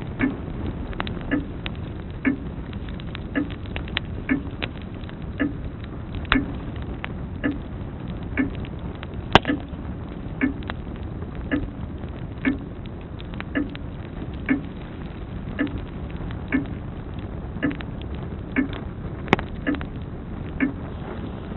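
Grandfather clock ticking evenly, about once a second, over the steady hiss and scattered crackles of a wood fire. A sharper, louder pop comes about nine seconds in and another near the end.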